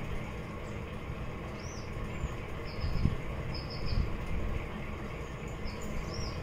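A small bird chirping in short, high, repeated calls over a steady low rumble, with a couple of soft low knocks in the middle.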